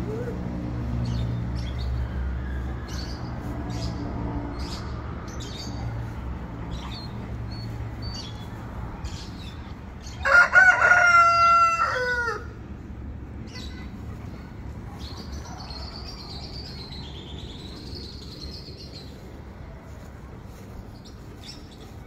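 A rooster crows once, loudly, about ten seconds in: a single call of about two seconds that drops in pitch at the end. Small birds chirp briefly throughout, over a low hum that fades out by about eight seconds in.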